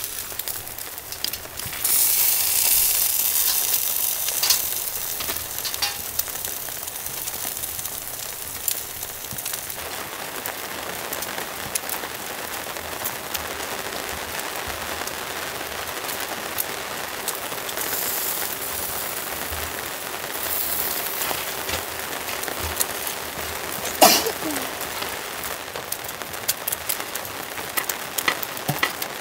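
Meat chops and vegetables sizzling on a charcoal grill, with fat spitting and crackling as it drips onto the coals. The sizzle swells louder for a few seconds about two seconds in, and there is one sharp click near the end.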